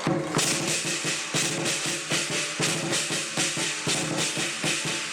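Lion dance percussion band of drum, cymbals and gong playing a quick, even beat, the metal ringing on between strikes.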